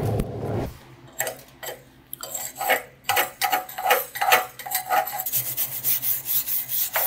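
A stick-welding arc from an E309L-16 rod crackles and cuts off under a second in. Then a wire brush scrubs slag off the fresh carbon-to-stainless weld bead in quick scraping strokes, about two or three a second, with a faint metallic ring from the steel plate.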